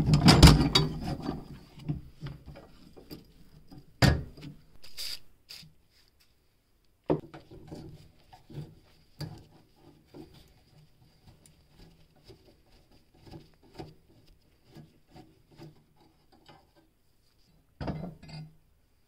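Rusty cast-iron balance scale being dismantled by hand: a burst of metal parts clattering and clinking at the start, single knocks a few seconds in, then a flat screwdriver scraping and ticking at a rusted pin. Near the end the parts clatter again as the weighing platform is lifted off.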